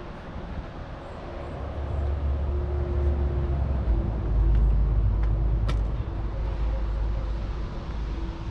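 New Holland L318 skid steer loader's 2.2-litre four-cylinder diesel engine running, growing louder about two seconds in, with its low note shifting around four seconds in.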